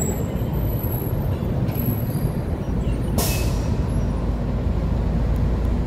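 City street traffic running steadily, with a short, sharp hiss of air about three seconds in from a heavy vehicle's air brake.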